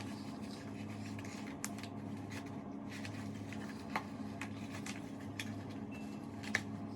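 A ratchet-style gun belt and its holsters being handled and adjusted: a few sharp, light clicks, the loudest near the end, over a steady low hum.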